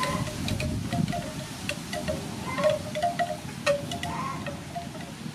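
Charcoal grill with squid cooking on it, giving sharp crackles and pops over wind noise on the microphone. A run of short ringing notes sounds throughout.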